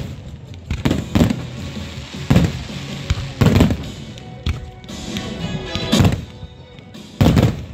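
Aerial firework shells bursting in a display, a series of sharp booms about once a second, with music playing underneath.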